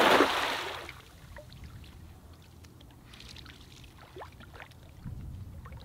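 Cast net slapping down flat onto shallow water with one broad splash right at the start, fading in under a second, followed by faint trickling and drips.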